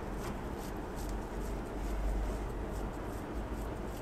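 Soft handling sounds of wet hands pressing and hollowing a ball of kibbeh dough, over a low steady background rumble.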